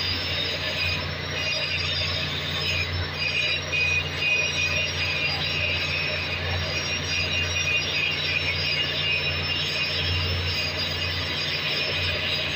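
Electric grinders grinding metal on a cracked exhaust valve housing, a continuous high screeching whine that wavers as the discs bite, over a steady low hum of engine-room machinery.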